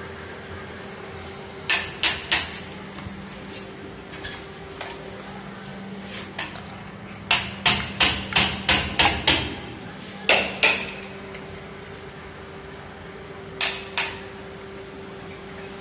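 Hammer strikes ringing on metal, in short clusters: three about two seconds in, a quick run of about seven around eight seconds in, then two pairs. A steady low hum runs underneath.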